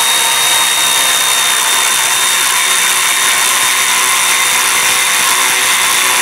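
Cordless electric ratchet running steadily with a high-pitched whine, driving a 6 mm Allen bit to run down an exhaust V-band clamp bolt.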